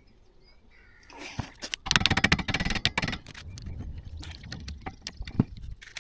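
Metal brake parts rattling, scraping and knocking as a car's rear brake caliper is worked loose and handled. A dense burst of rapid clicking comes about two seconds in, and there is a single sharp knock near the end.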